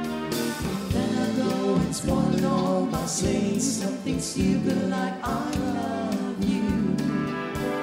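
A slow rumba song playing, with a voice singing long held notes over the accompaniment.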